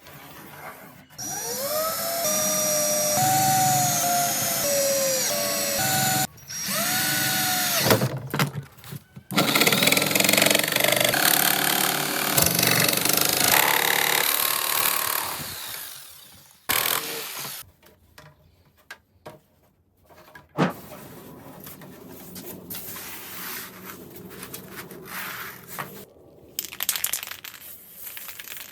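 Power drill running in several bursts, its motor whine rising each time it spins up, then a longer, louder, noisier run as it works into the material. Quieter scattered knocks and handling noises follow.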